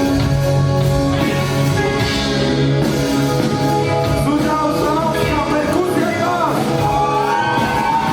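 Live rock band playing, with held bass and guitar notes over drums; a singer's voice comes in about halfway through.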